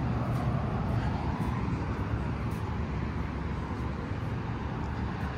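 Steady noise of road traffic with a low rumble.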